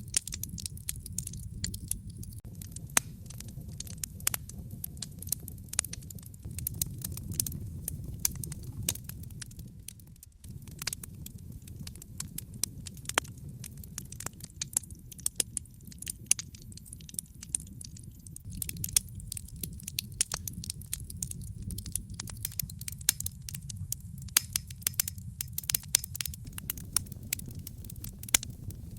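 Wood fire crackling, with frequent sharp pops and snaps over a low, steady rumble of flames.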